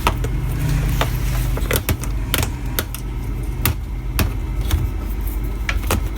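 Scattered light clicks and knocks as a replacement speaker is handled and test-fitted against the TV's plastic case, over a steady low hum.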